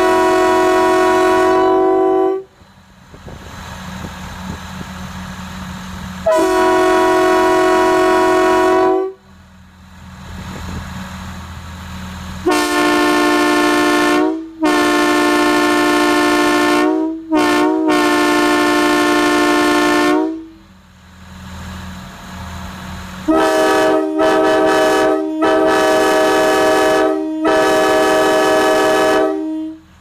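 Locomotive air horns blown one after another on compressed air, each sounding a multi-note chord. A Nathan Airchime RS-3K three-chime horn gives two long blasts, a Nathan M3H three-chime horn gives four blasts in the middle, one of them very short, and a Nathan K5LA five-chime horn sounds a string of short blasts near the end. A low steady hum fills the gaps between blasts.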